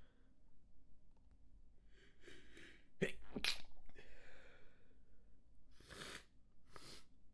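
A person caught in a rapid sneezing fit: a breathy inhale, then two sneezes in quick succession about three seconds in, the loudest, followed by two more sneezes near the end.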